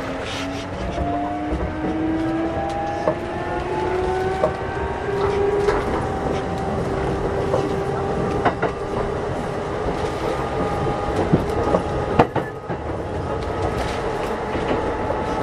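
Kintetsu 8600-series electric train running and picking up speed, its traction motors and gears whining in several tones that rise steadily in pitch, over a steady rumble with a few sharp clicks from the wheels and track.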